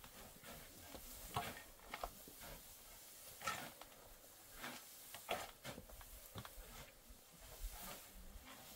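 Steel shovels scraping and scooping into a heap of dry sand mix, as short, irregular scrapes about a second apart.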